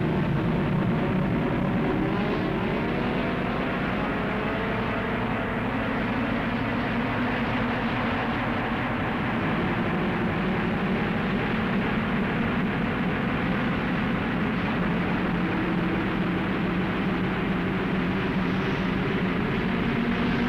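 A pack of racing cars' engines running together at full throttle, their pitches rising as the field accelerates, then holding at a steady, dense roar.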